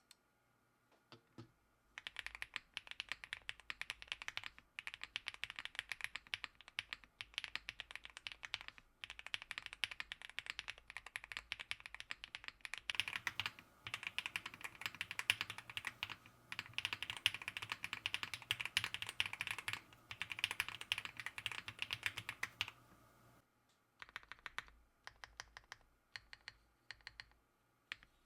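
Fast typing on a Mr. Suit custom mechanical keyboard with Kailh BCP switches, dampened with PE foam and PCB and case foam: quick keystroke clacks in bursts with brief pauses. The typing starts about two seconds in.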